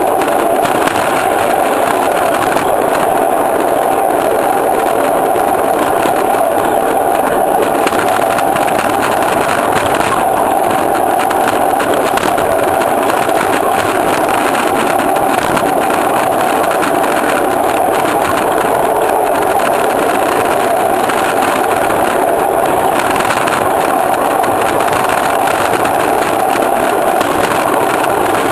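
Ride-on miniature railway train running steadily along the track, heard from its caboose: an even running noise that holds the same level and pace throughout.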